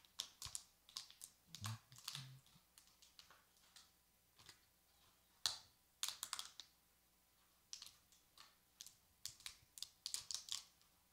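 Thin plastic water bottle being bent by hand, its cut strips folded back into fins, giving faint, irregular crinkles and clicks.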